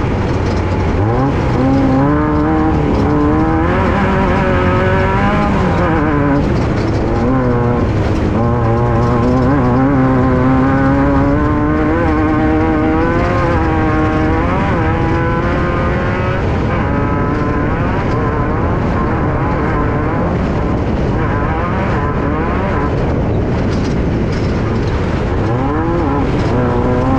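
Air-cooled 1600 cc Volkswagen engine of a Class 5/1600 off-road race car at racing speed, heard from inside the car. The engine is loud and revs continually up and down as the driver accelerates and lifts.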